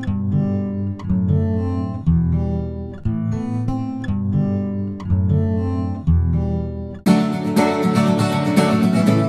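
Music: acoustic guitar strumming chords, with a new chord about once a second. About seven seconds in, the music turns to a busier, brighter passage.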